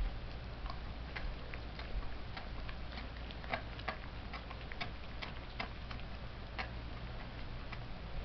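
A dog chewing a raw pork trotter, its teeth giving irregular sharp clicks and cracks, a few each second, as it crunches on the bone.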